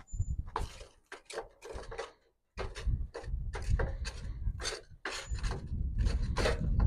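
Wooden spatula scraping and pushing lit, ash-covered charcoal briquettes around inside a small metal grill box in a series of short scrapes, spreading the hot coals. There is a short pause about two seconds in.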